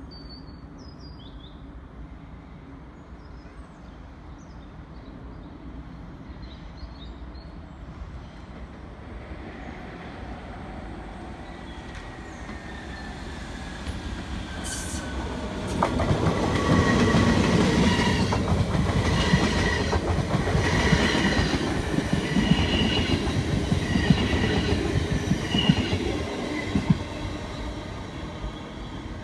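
NS DDZ double-decker electric train approaching and passing close, with wheels rumbling on the rails and intermittent high wheel squeal. It grows slowly, turns suddenly loud a little past the middle, then fades near the end. A few faint high chirps come at the start.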